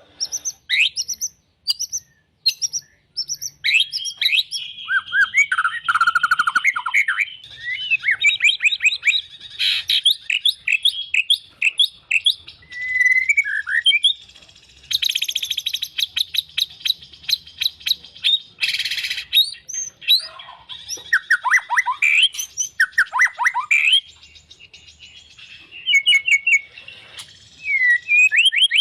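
White-rumped shama singing a long, varied song of rapid chirps, trills and whistled sweeps, some dropping steeply in pitch, with only brief pauses.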